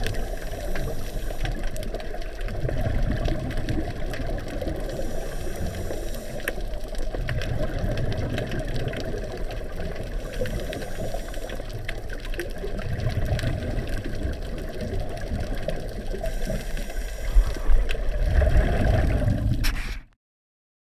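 Scuba diver breathing through a regulator, heard underwater: a hiss on each inhale and a rumble of exhaled bubbles, repeating about every four to five seconds over a steady underwater rumble. The sound cuts off suddenly near the end.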